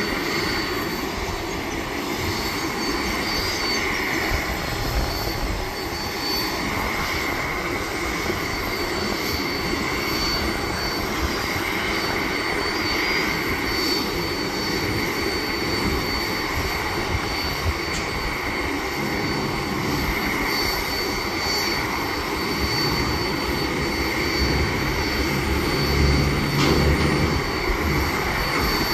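Steady jet aircraft noise across the airport apron, with a thin high whine over it, and wind buffeting the microphone. It gets a little louder about three seconds before the end.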